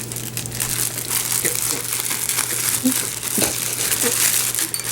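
Plastic bread bag crinkling and crackling steadily as it is handled and opened.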